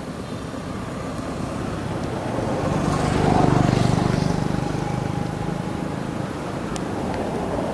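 A motor vehicle passing by, its engine noise swelling to a peak about halfway through and then fading.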